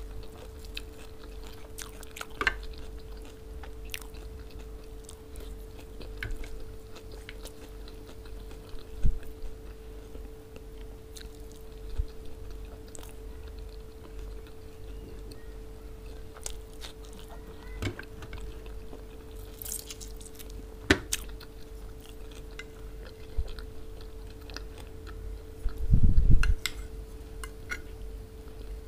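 Close-miked eating: chewing and biting on lamb, okra stew and rice, with scattered sharp clicks from a spoon on the plate and a steady low hum underneath. A dull low thump comes near the end.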